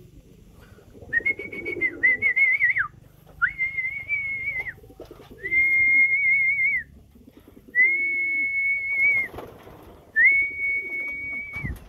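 A person whistling six steady, high notes, each about a second long with a slight warble, to call pigeons to their feed of paddy rice. Pigeons coo faintly between the whistles.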